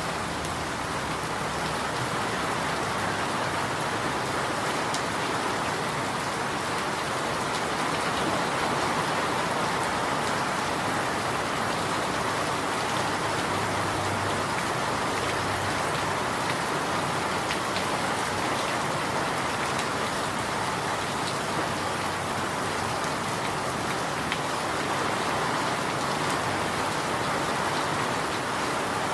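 Steady rain falling, an even hiss of many drops that holds level throughout.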